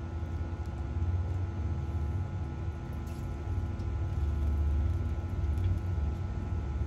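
Steady low hum of a running kitchen appliance, with a few faint light clicks from a spatula working the blistered tomatoes in the dish.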